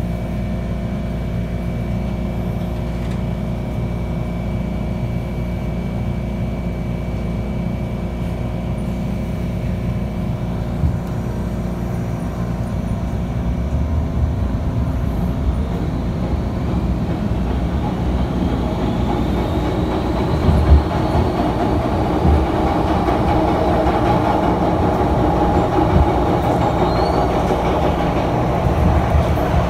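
MTR M-Train electric multiple unit heard from inside the car, pulling away and gathering speed: a steady low hum at first, then partway through a faint rising electric whine and a growing rumble of wheels on the rail.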